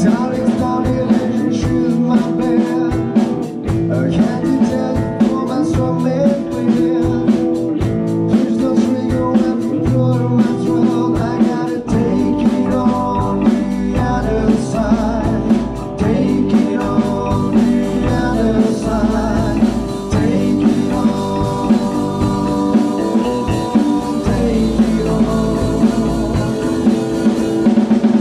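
A rock band playing together live: drum kit keeping a steady beat under electric bass and electric guitar.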